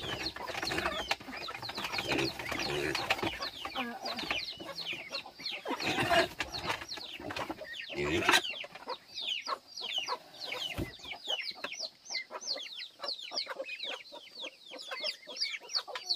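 Chickens, many chicks peeping without pause: short, high cheeps that drop in pitch, several a second, with a few louder, fuller calls in the first half.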